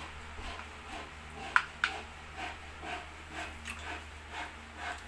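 Close-up eating sounds: rhythmic chewing and mouth noises about twice a second, with two sharp clicks about one and a half seconds in.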